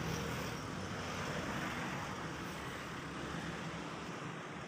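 Steady outdoor engine drone with a low hum, mixed with traffic-like noise, as cargo barges motor along the canal below; no single sound stands out.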